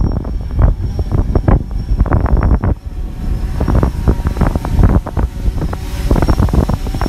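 Wind buffeting a microphone in uneven gusts, a loud rough rumble with a brief lull about three seconds in.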